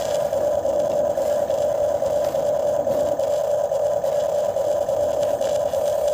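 RC excavator's small electric motor running with a steady, even buzz.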